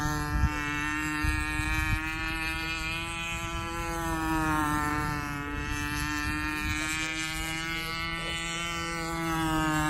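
Radio-controlled model airplane's motor and propeller droning in flight, a buzzing note with many overtones whose pitch dips and rises as the plane passes and turns. A low rumble with a few thumps runs beneath it.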